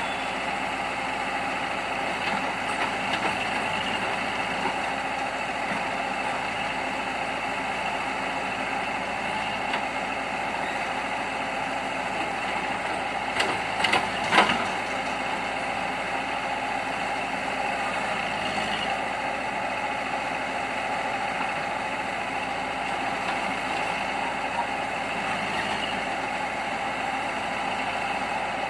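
Heavy diesel engines of a tipper lorry and a backhoe loader idling steadily, with a short cluster of sharp knocks about halfway through.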